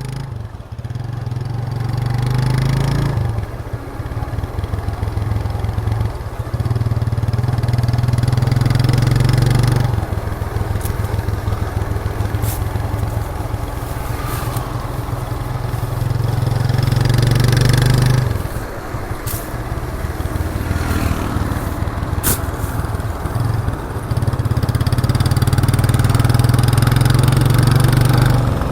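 1998 Suzuki GN125's single-cylinder four-stroke engine running under way through its exhaust, getting louder for stretches of a few seconds under throttle and easing off between them.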